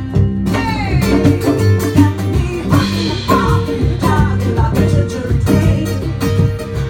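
Live acoustic band music: acoustic guitar playing with a singing voice.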